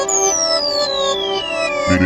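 Instrumental intro of a hip-hop track: sustained synthesizer chords with one long falling pitch sweep, and a deep bass coming in near the end.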